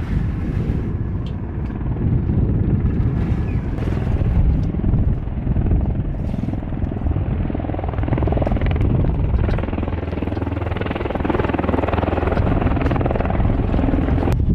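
CH-53E Super Stallion heavy-lift helicopter running, a steady, loud, heavy low rumble of rotor and turbine engines.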